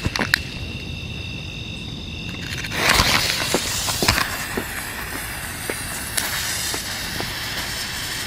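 Ground spinner firework with a flying-fish-type fuse catching about three seconds in and hissing steadily as it spins on the ground, with scattered sharp pops and ticks. A thin steady high tone is heard before it catches.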